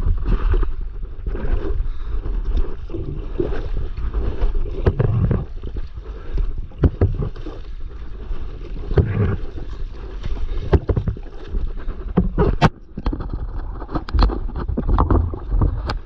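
Seawater splashing and sloshing against a stand-up paddleboard and the low action camera, with wind buffeting the microphone: an uneven rumbling rush broken by many short, sharp splashes.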